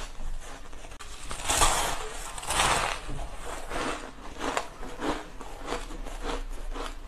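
Soft crushed ice being crunched and chewed. Two longer loud crunches come in the first three seconds, then a run of short crisp crunches about once or twice a second.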